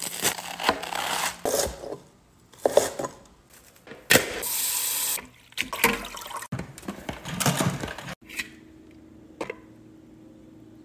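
Romaine lettuce being cut with a knife and washed: crisp cuts through the leaves, then tap water running and splashing over chopped lettuce in a strainer basket in several bursts, settling into a quieter steady hum in the last few seconds.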